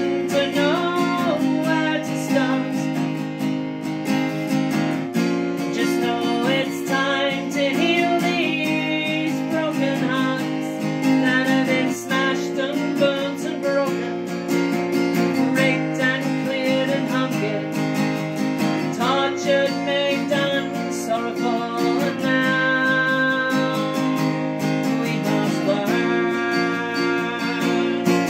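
A woman singing while strumming chords on a small-bodied acoustic guitar.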